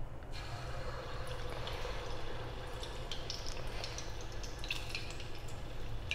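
A ball of sweet vada batter deep-frying in hot oil in a kadhai: steady sizzling and bubbling with scattered crackles and pops.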